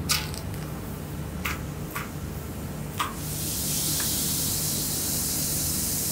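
A few light clicks and knocks, then from about three seconds in a steady high hiss: vegetables sizzling on a hot saj griddle.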